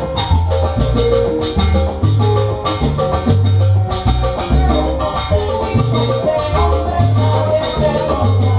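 Salsa band playing an instrumental passage: a repeating bass line under steady, dense percussion, with melodic lines over the top.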